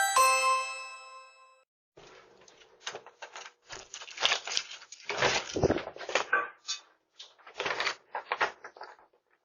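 A doorbell chime rings and fades out over about a second and a half. Then a run of irregular rustling and bumping noises follows for several seconds.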